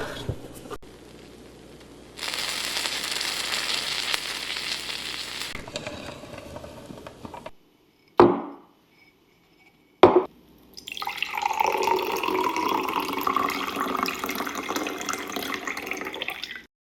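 Food sizzling in a frying pan, in two long stretches with short silent gaps between them, and a sharp knock about ten seconds in.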